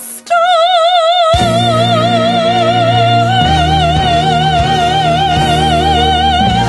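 Female classical crossover soprano holding one long high note with wide vibrato, alone at first, then joined by backing music with a deep bass about a second and a half in; the note steps slightly higher about three seconds in.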